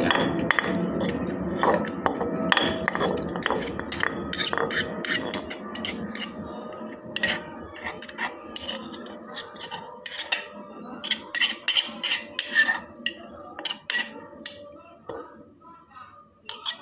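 Metal spoon stirring and scraping mashed grilled eggplant in a stone mortar, clinking against the stone. The mixing is dense and continuous at first, then thins to separate clinks about one or two a second.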